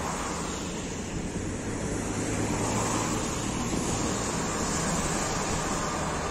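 ER2 electric multiple unit train running past, a steady rumble of wheels on rails with a low hum and hiss, growing a little louder over the first couple of seconds.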